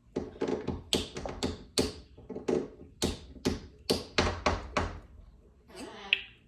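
A rapid, uneven series of sharp taps, about four a second, stopping about five seconds in, then a short warbling vocal sound.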